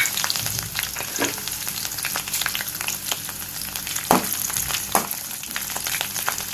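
Curry leaves, green chillies and fennel seeds frying in hot oil in a kadai: a steady sizzle with many small crackling pops, and a few knocks of a spoon stirring against the pan.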